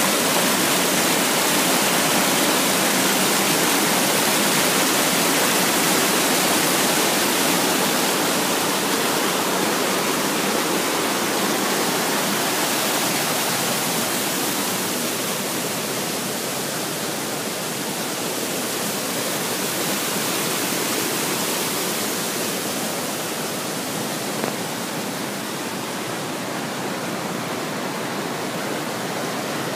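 Waterfall: water falling and splashing in a steady, dense rush that eases slightly in loudness in the second half.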